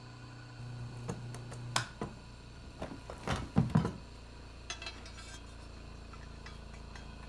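Metal clinks and knocks from a steel lawnmower blade being handled and set on a balancer. The knocks are irregular, with the loudest cluster a little after three seconds and a few lighter ones near five seconds.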